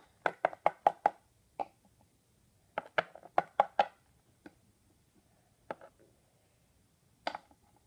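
Small plastic toy figures tapped on a wooden tabletop as they are hopped along: two quick runs of about five sharp taps a second, then a few single taps.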